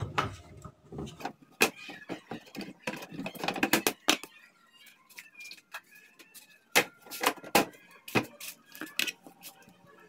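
A series of sharp plastic clicks and knocks as a twin-tub washing machine's lid and control panel are handled.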